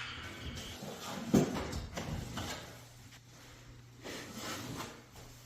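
Scattered knocks and clunks of renovation work, the loudest about a second and a half in, over a low steady hum.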